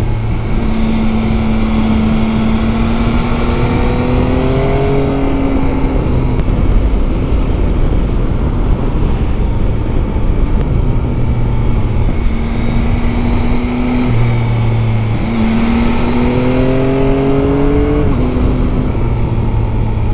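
Yamaha Tracer 9 GT's three-cylinder engine pulling along the open road, its note climbing under acceleration and stepping with gear changes, with wind rushing over the microphone.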